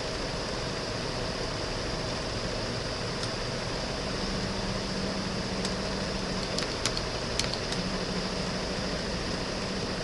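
Steady background hum and hiss of room noise, fan-like, with a faint low tone joining about four seconds in. A few light clicks come close together about seven seconds in.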